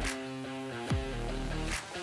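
Background music, a guitar-led track with a steady beat: sharp hits alternate with a deep falling bass hit, about one every second.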